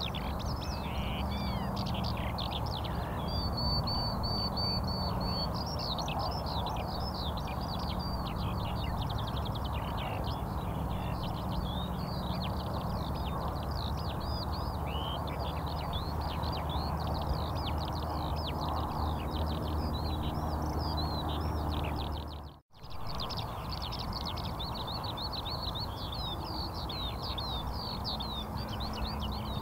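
Many small birds chirping busily and without pause, with a brief whistled note a few seconds in, over a steady low hum. The sound drops out completely for a split second about three-quarters of the way through.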